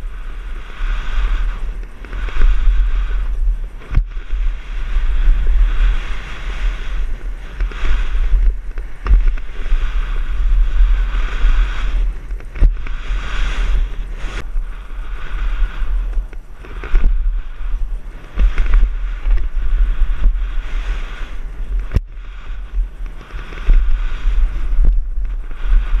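Wind buffeting a helmet-mounted camera's microphone as a mountain bike rides fast down a dirt trail, a heavy gusting rumble that rises and falls. A few sharp knocks come through now and then.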